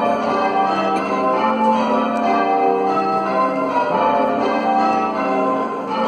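A peal of church tower bells rung in changes by hand-pulled ropes: a continuous run of overlapping bell strikes, each ringing on as the next one sounds.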